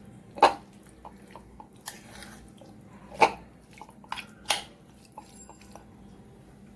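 Chicken strips being stirred into a wet marinade in a bowl, with a few sharp clinks of the utensil against the bowl; the loudest come about half a second in and just past three seconds, then two more a little later.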